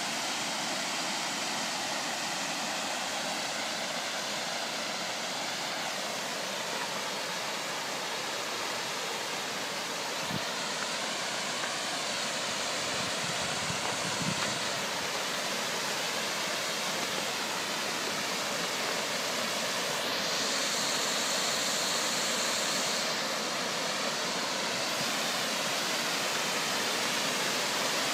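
Storm floodwater of rain and hail running in a steady rushing torrent.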